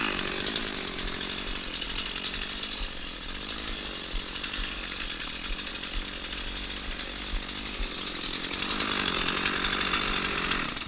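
Two-stroke chainsaw idling after the throttle is let off, swelling a little near the end and then cutting off abruptly.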